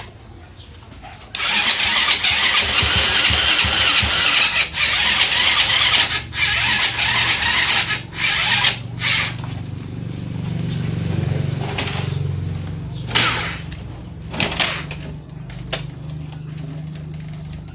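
A 110 cc motorcycle engine being started. About a second in comes a loud, rough burst of noise with short breaks, lasting several seconds. It then settles into a steady idle.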